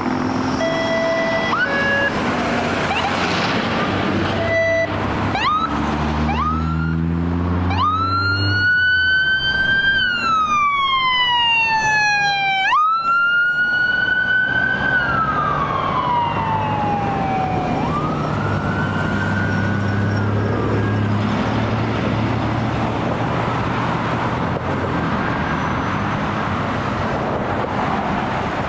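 Fire truck responding with a mechanical siren: a few quick wind-ups, then long cycles of winding up and slowly coasting down, three times, fading after about 21 seconds. Underneath, the truck's engine rises in pitch as it accelerates, and in the first five seconds there are two short horn blasts.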